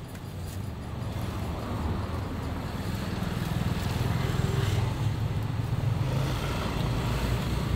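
Motorbike traffic on the street: an engine running, growing louder over the first few seconds and then holding steady.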